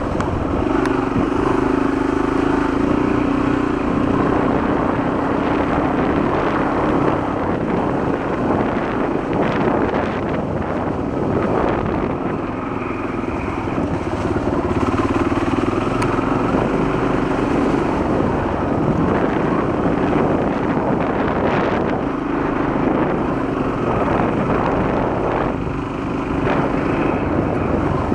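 Honda XL250 motorcycle's single-cylinder four-stroke engine running steadily while being ridden, easing off briefly a couple of times.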